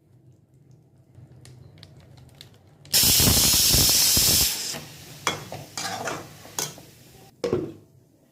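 Food sizzling as it goes into hot oil in a pan: a sudden loud hiss that lasts about a second and a half, then dies down into a softer sizzle broken by clicks and scrapes.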